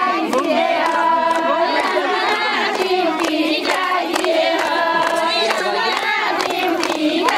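A group of women singing a Nepali ratyauli folk song together, with hand claps keeping the beat.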